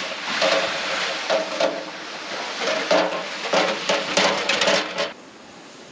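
Metal wood stove clattering and rattling in a sled being pulled over rough ground. The rattling stops about five seconds in.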